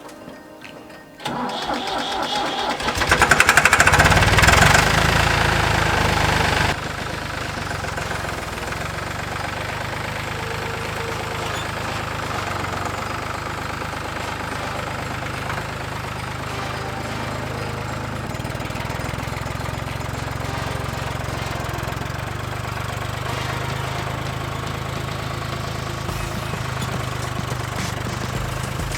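Small farm tractor's engine starting: it comes in about a second in and runs loud and high for a few seconds. About seven seconds in it drops to a steady idle. It is a hard-starting engine that has been given starting ether.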